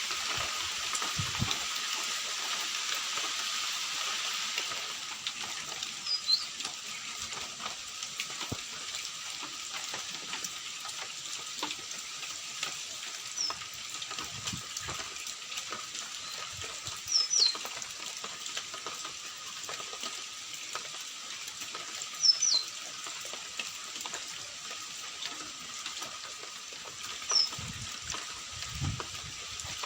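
Steady hiss of falling rain or running water, a little louder for the first few seconds. About five short, high bird chirps come through it at intervals.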